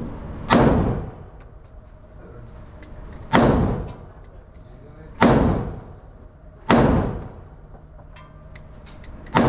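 Five gunshots fired one at a time, roughly two seconds apart, each with a short echoing tail from the indoor firing range.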